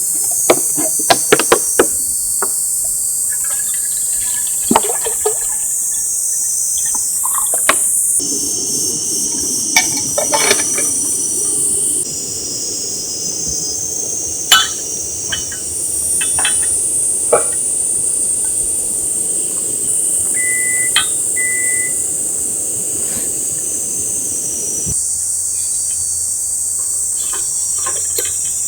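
A steady high-pitched chorus of summer insects, with scattered clicks and knocks of handled objects. From about eight seconds in to about twenty-five seconds, a rushing sound like running or pouring water joins them, and two short beeps sound near the middle.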